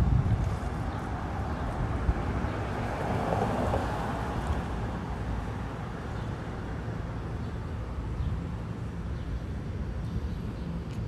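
Steady low rumble and hiss of wind on the microphone.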